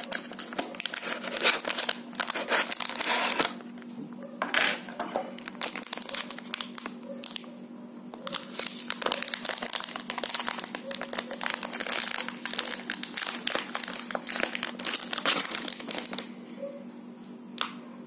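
Clear plastic bag crinkling and rustling as it is handled and pulled off a small electronic gadget, in irregular stretches with short pauses. It stops about two seconds before the end, followed by a single click.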